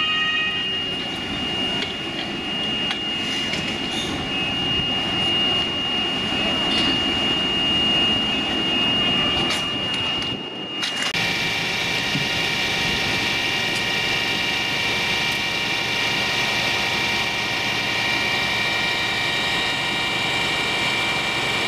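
Fire engines running at a fire scene, their engines and pumps making a steady drone with a high, steady whine. About eleven seconds in the sound changes abruptly to a similar drone with lower whining tones.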